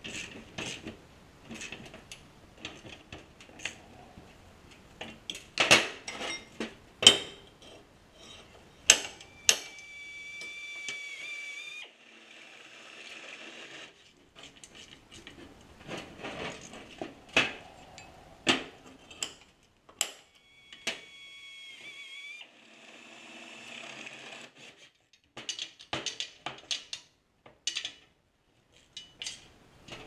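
Metal parts and hand tools clanking and knocking on a steel workbench in irregular sharp strikes. A small power tool whines for about two seconds twice, about ten and twenty seconds in.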